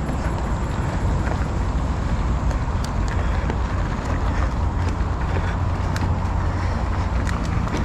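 Wind rumbling on the microphone with road noise during a bicycle ride, steady throughout, with scattered small clicks.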